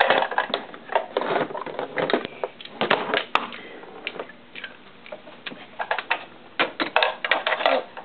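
Plastic toy tools clicking and clattering against a plastic toy workbench, in irregular runs of quick taps.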